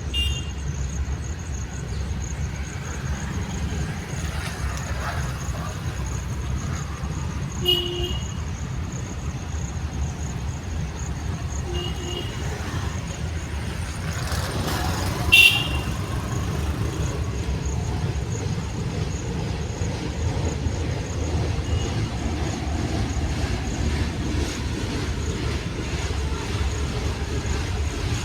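Short horn toots, about five spread through the stretch, the loudest about halfway through, over a steady low rumble of moving rail traffic.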